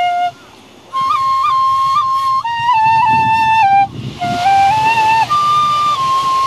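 Shinobue, a Japanese bamboo transverse flute in hachi-hon-chōshi (key no. 8), playing a slow melody. A held note ends just after the start, a short breath follows, then phrases of sustained notes with quick upward finger-flick ornaments, broken by brief breaths about four and five seconds in.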